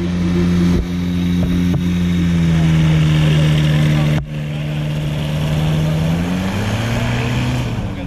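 Paramotor trike's engine and propeller running with a strong steady drone. The pitch sinks slightly over the first few seconds, then climbs about six and a half seconds in.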